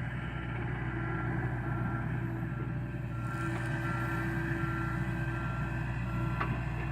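John Deere excavator's diesel engine running steadily, with a backup alarm beeping about twice a second over it.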